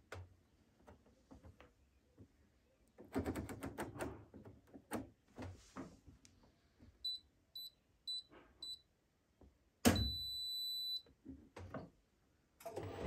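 Control panel of a Hotpoint Ariston Aqualtis washer dryer being set: scattered clicks and handling knocks, then four short beeps from button presses. About ten seconds in a thump is followed by one longer beep, and just before the end the machine starts up with a steady noise as the spin and pump-out programme begins.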